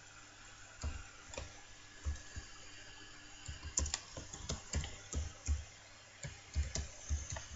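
Computer keyboard being typed on: irregular keystroke clicks, a few spaced ones at first, then quicker bursts of typing from about three and a half seconds in.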